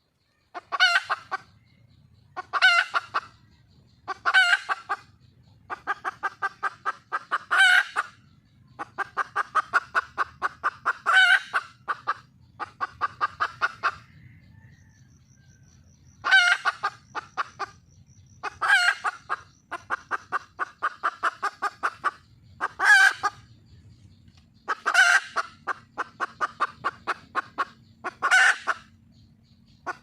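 Junglefowl hen calling for a mate: repeated runs of rapid clucks, each series coming every couple of seconds and often ending in a louder note.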